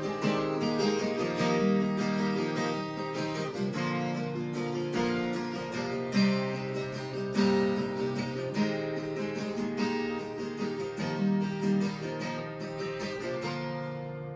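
Acoustic guitar strummed in steady strokes, playing an instrumental passage of chords without singing; it grows softer near the end.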